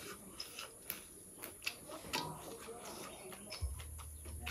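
Quiet eating by hand: scattered small clicks and ticks of chewing and of fingers working rice and stripping leafy greens. A low steady rumble comes in about three and a half seconds in.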